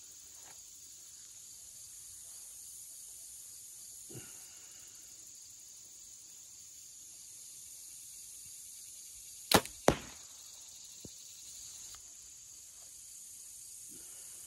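A compound bow shot at 62 pounds: the sharp snap of the string's release, then about a third of a second later the smack of a heavy 522-grain Warhead Tomahawk .165 carbon arrow hitting a bag target at 20 yards. The two cracks are about equally loud and come a little past two-thirds of the way in, over a steady chirr of insects.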